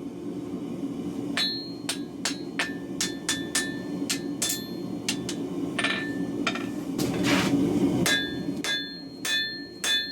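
Hand hammer striking steel on an anvil in irregular blows, about two a second, many of them with a short metallic ring, over the steady rushing of a gas forge burner.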